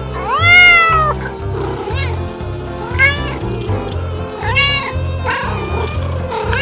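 Cat yowling and meowing: one long, loud yowl that rises and falls about half a second in, followed by several shorter meows. Background music with a steady bass beat plays underneath.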